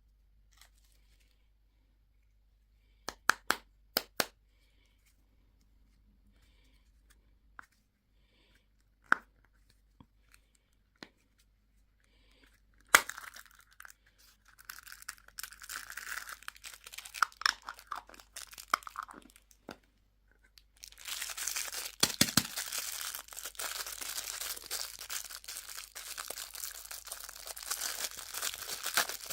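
Candy and toy packaging being opened: a few sharp plastic clicks, then wrappers crinkling and tearing, turning into dense, continuous crinkling for the last third.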